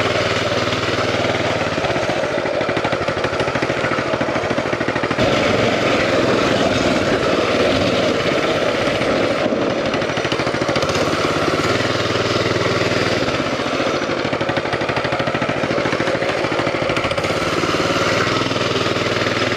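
Coleman CT200U mini bike's 200cc single-cylinder engine running under a rider, with rapid firing pulses. It holds a steady low speed at first, is opened up about five seconds in, and eases back near twelve seconds.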